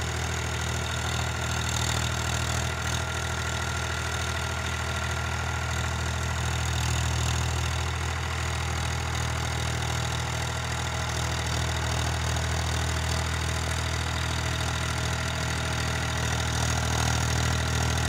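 Powertrac 439 Plus tractor's diesel engine running steadily under load, pulling a 7-foot rotavator; it grows a little louder near the end.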